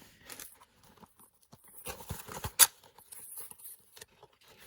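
Handling noises: scattered light taps and soft plastic rustling as something is handled and set in place, with one sharp click about two and a half seconds in.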